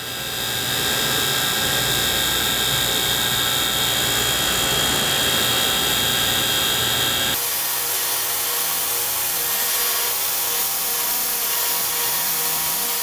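Tool and cutter grinder running, its cutting disc grinding through a spinning rod of semi-fired alumina bisque ceramic: a steady high whine over a grinding hiss. About seven seconds in the sound changes abruptly, the high whine and low rumble dropping away while the grinding hiss goes on.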